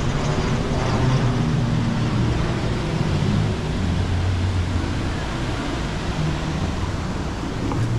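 A vehicle running, with steady engine and road noise whose low hum shifts in pitch now and then.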